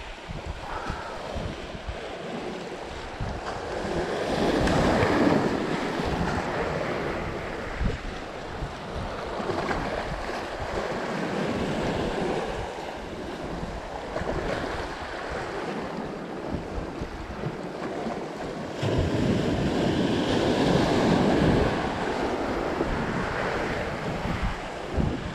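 Small ocean waves breaking and washing over the shoreline rocks, the surf swelling louder about five seconds in and again about three quarters of the way through, with wind buffeting the microphone.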